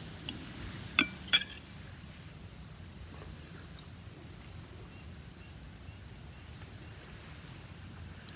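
Two quick clinks of a fork against the dish about a second in, over a faint steady outdoor background.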